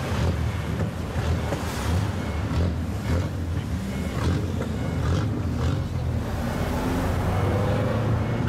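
Deep, uneven low exhaust rumble of a straight-piped kaido-racer car running at low speed, mixed with other cars driving past close by.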